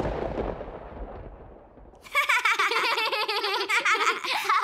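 A thunderclap sound effect rumbling away and dying out, then children giggling and laughing from about two seconds in.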